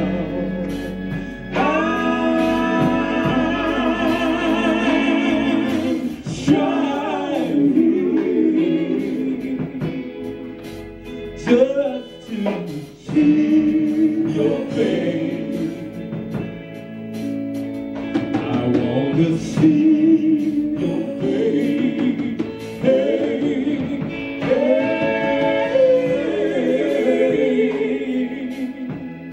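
Male gospel quartet singing in harmony, with several long held chords.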